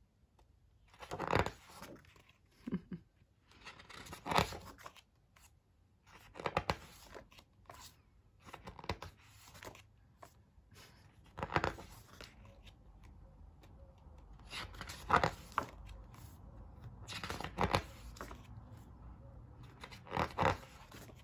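Pages of a hardcover photo book being turned by hand: a short rustle and swish of paper every two to three seconds, about nine times.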